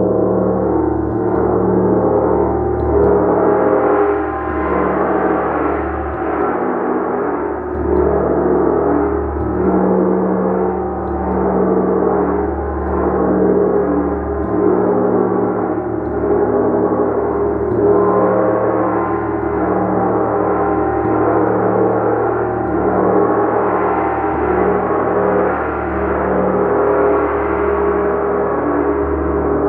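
A gong played continuously with a mallet, giving a dense, sustained wash of overlapping tones that swells in waves about every two seconds.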